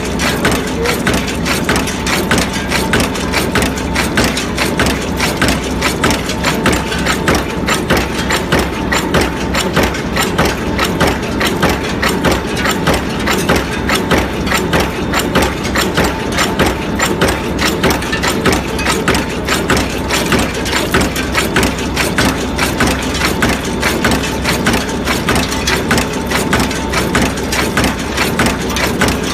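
Cold forging machine for needle bearing rollers running steadily, a fast even rhythm of short forging knocks over a steady mechanical tone.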